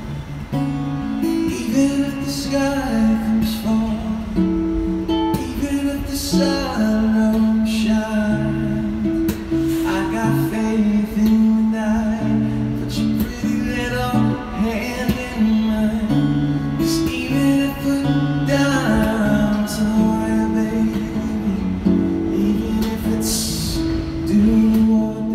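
A man singing to his own acoustic guitar strumming, a live busking song.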